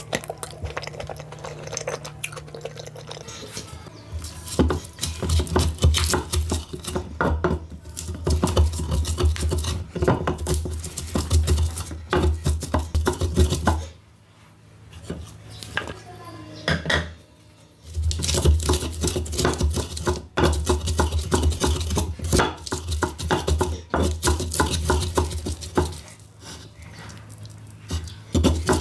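Wooden pestle grinding fresh peppers, tomatoes and onions in a grooved earthenware grinding bowl to make pepper dip: quick repeated knocks and scraping of wood on clay. The grinding starts about four seconds in and pauses for a few seconds in the middle.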